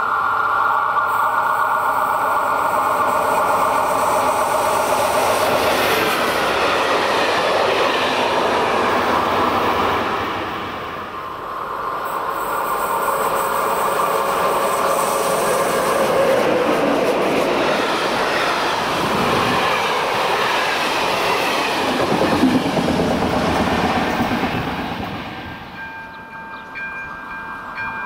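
Passenger trains passing through a station at speed, with the wheels rumbling and clattering over the rails. A short lull comes about eleven seconds in, then a second train passes. Near the end the rumble drops and a steady tone of several notes sounds over it.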